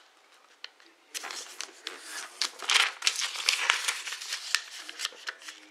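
A sheet of origami paper rustling and crinkling under the fingers as its two edges are folded in to the middle crease and pressed flat, a run of short crackles starting about a second in.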